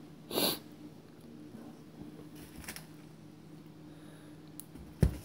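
Groceries being handled on a kitchen counter: a brief rustle about half a second in and a sharp knock near the end, over a steady low hum.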